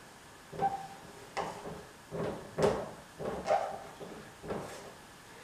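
Dry-erase marker writing on a whiteboard: about seven short squeaks and scrapes, one for each pen stroke, a couple of them with a brief high squeal.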